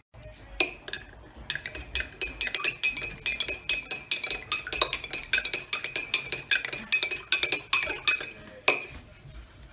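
Teaspoon stirring a powdered drink in a heavy glass tumbler, clinking quickly against the sides about four times a second while the glass rings. The stirring stops about a second before the end.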